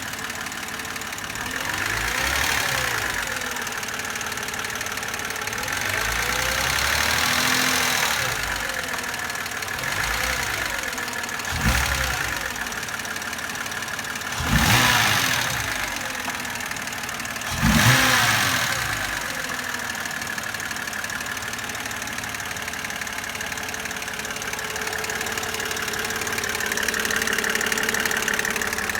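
BMW N52B25 2.5-litre straight-six engine running, with the knocking of its hydraulic lifters that the owner is showing. It is blipped several times in the first two-thirds, each rev rising and falling quickly, then settles to a steady idle.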